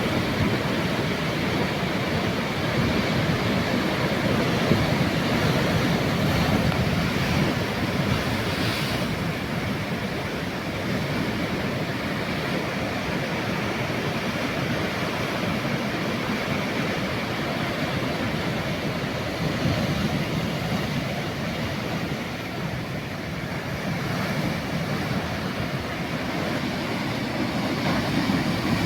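Ocean waves breaking and washing in: a steady rush that swells and eases a little.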